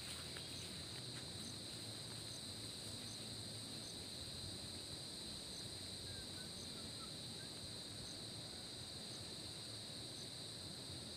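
Faint, steady insect chorus: a continuous high-pitched trill, with a faint higher tick repeating about every 0.7 s and a few brief lower chirps about halfway through.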